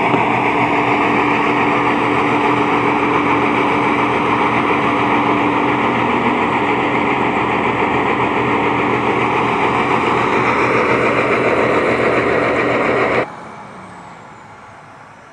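Road compaction machine running steadily at full working noise while compacting the ground. The sound is loud and even, with a steady engine hum, and cuts off suddenly near the end.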